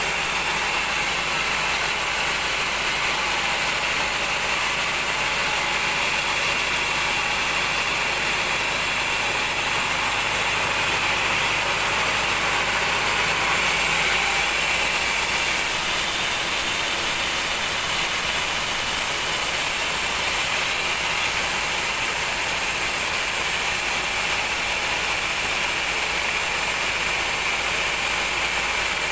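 Band sawmill running steadily, its blade ripping lengthwise through a large mahogany log to cut off a board.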